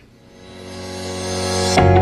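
Background music: a swell that grows steadily louder, then breaks into a steady bass line with repeated keyboard notes near the end.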